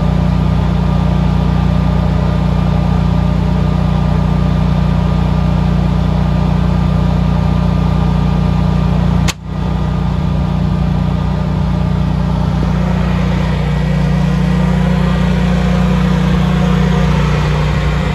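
Generac 22 kW air-cooled standby generator's V-twin engine running steadily in its cool-down period after utility power returns. About nine seconds in, a single sharp clunk as the automatic transfer switch throws the house back to utility power.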